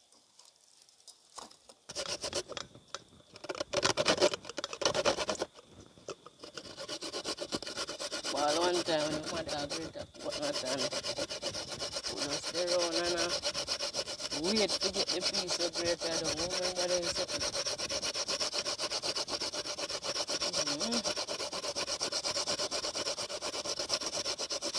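Coconut flesh being grated by hand on a metal box grater: rapid, steady rasping strokes that start about two seconds in and keep going.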